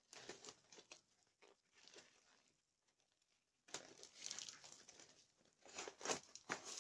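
Glued-on bicycle saddle cover being peeled and flexed off its plastic base, giving faint crinkling, rustling and tearing noises in irregular bursts, with longer stretches about four seconds in and near the end.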